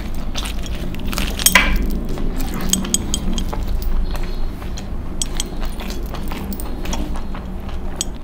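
Close chewing and eating of a chicken leg held in the hands, with many small wet clicks and light metallic clinks from the eater's rings and bracelets. There is a louder bite about a second and a half in.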